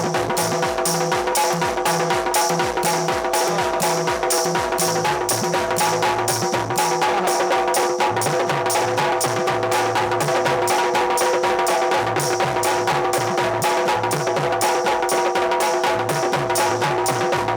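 Instrumental folk music: fast, even drumming over several steady held notes, with no singing.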